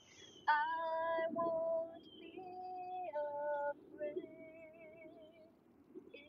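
A woman singing a cappella: slow, held notes changing pitch about once a second, with a long wavering note held through the second half.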